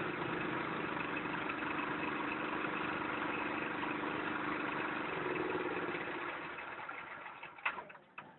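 Motor-driven rice threshing machine running steadily, then winding down and stopping over the last few seconds, followed by a few sharp clicks near the end.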